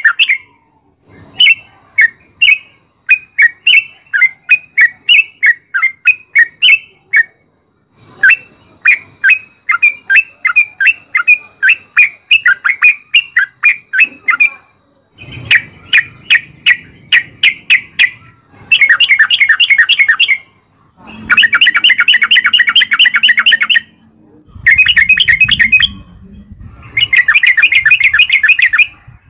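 Yellow-vented bulbul (trucukan) singing loud, rapid strings of chirping notes. Runs of separate chirps give way to fast, unbroken rolls, repeated with brief pauses.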